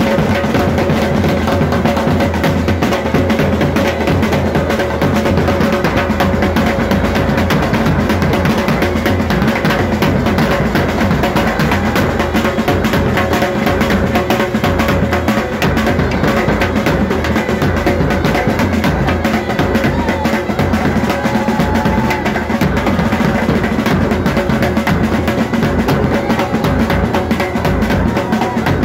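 Band playing loud, drum-heavy dance music with a steady beat that never lets up.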